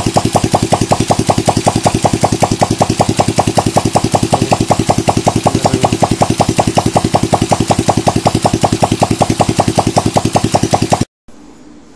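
Freshly top-overhauled single-cylinder four-stroke motorcycle engine, 110 cc class, running at a steady idle on its first start after the rebuild, with no exhaust pipe fitted, so each firing pulse comes straight from the open exhaust port in an even, loud rhythm of about eleven beats a second. The sound cuts off suddenly about eleven seconds in.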